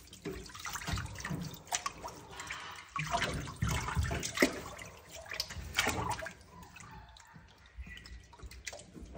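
Shallow water in a plastic tub splashing and dripping in irregular spurts as small monkeys wade and move about in it, busiest through the middle.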